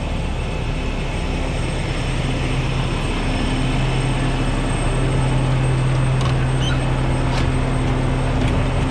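Kenworth semi tractor's diesel engine idling with a steady low drone that grows louder about halfway through. Near the end come a few light metal clicks as the chain box on the truck is opened.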